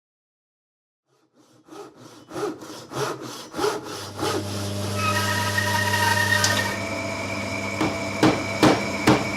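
Handsaw cutting wood in regular back-and-forth strokes, about two a second. A steady hum of several tones sounds under the strokes from about halfway through.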